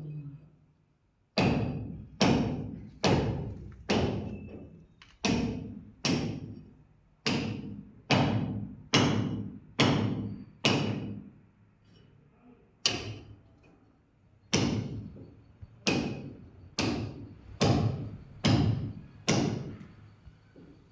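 A hammer striking repeatedly and steadily during plumbing work, about twenty blows at a little more than one a second. Each blow rings out briefly, and there is a short pause about halfway through.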